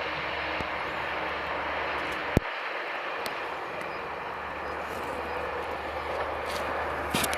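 Kyoto Tango Railway diesel train running by the crossing: a steady engine and rolling noise with a low hum. A single sharp click comes about two seconds in.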